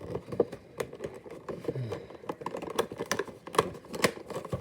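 Hands working at a cardboard toy box and its plastic packaging: a run of irregular clicks, taps and scrapes as the box resists opening.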